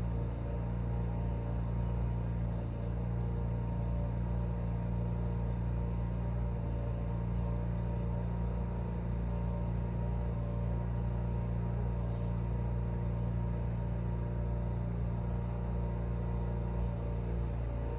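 Lawn mower engine running steadily at constant speed, a low even drone with no change in pitch.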